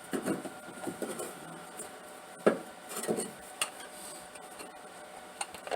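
Light clicks, taps and rubbing from a distributor cap and small ignition parts being handled, with a handful of sharp knocks, the loudest about two and a half seconds in.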